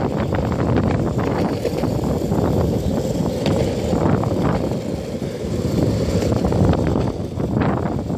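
Skateboard wheels rolling over rough asphalt with a steady rumble, mixed with wind buffeting the phone's microphone, and occasional sharp clicks.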